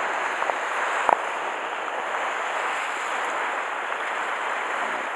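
Steady wash of sea surf breaking against shore rocks, with one sharp click about a second in.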